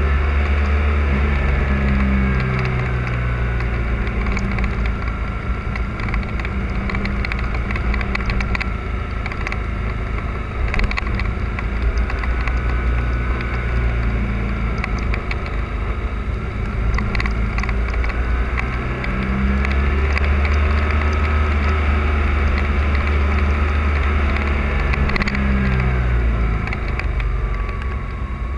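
Motorcycle engine running steadily through a series of bends, its pitch rising and falling as the rider opens and closes the throttle, louder for a stretch in the second half.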